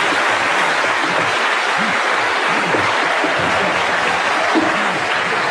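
Live studio audience laughing and applauding, a dense, steady wash of sound.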